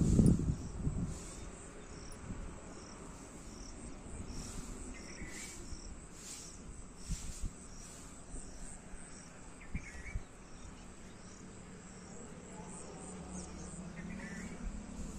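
Insects chirring in a steady, evenly pulsing high chorus, with a short call heard three times, about every four to five seconds. A low rumble in the first second is the loudest sound.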